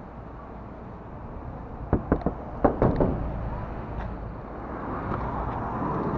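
A handful of sharp knocks and clunks, about two to three seconds in, at a white panel van's sliding side door as it is opened. A steady low background rumble runs underneath.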